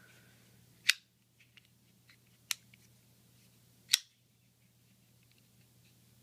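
Black folding pocketknife being worked in the hand, its blade and lock snapping with three sharp metallic clicks about a second and a half apart.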